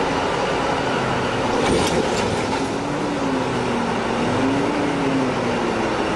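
Mining haul truck's diesel engine running, its pitch rising and falling slightly. About two seconds in there is a heavy thud with a few knocks as the tipped truck drops back onto its wheels.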